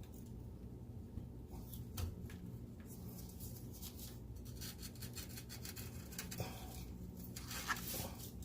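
Faint scraping and light metallic clicks as exhaust Y-pipe hardware is worked loose by hand, over a steady low hum.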